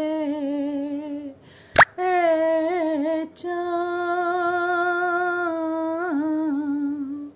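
A woman's unaccompanied voice holds long sung notes of a devotional salaam, with small wavering ornaments, pausing twice for breath. There is a brief sharp pop about two seconds in.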